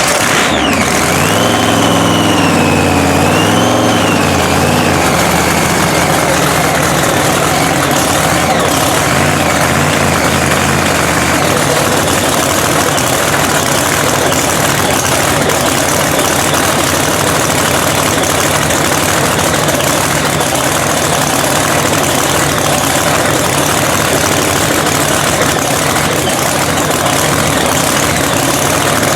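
Supercharged 3,500-horsepower Hemi V8 in a drag-racing truck, freshly rebuilt, running loudly just after start-up. A high whine falls away and the engine note wavers over the first few seconds as the revs settle, then it holds a steady idle.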